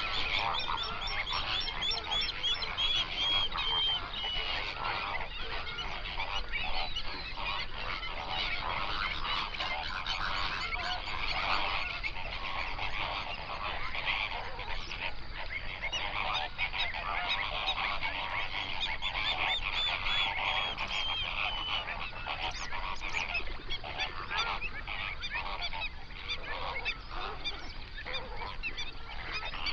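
A flock of flamingos calling, many goose-like honks overlapping without a break.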